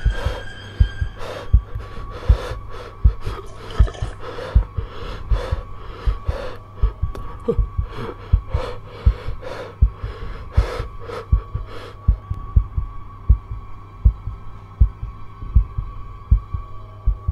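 A heartbeat sound effect thumping in a regular rhythm over a steady low hum and a thin high ringing tone. A crackling noise rides over the beats and drops away about two-thirds of the way through.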